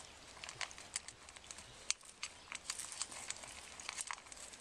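Two puppies eating together from a metal food bowl on gravel: irregular crunching and clicking, several a second, with one sharper click about two seconds in.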